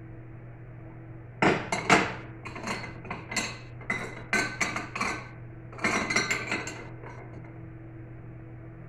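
A stack of small plates clinking and scraping against each other and the shelf as they are pushed into a cabinet, a run of sharp clinks from about a second and a half in until about seven seconds, over a steady low hum.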